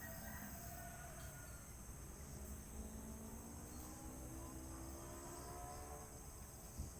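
Steady high trilling of a night insect chorus, crickets among them. Faint, slowly gliding drawn-out tones sound underneath.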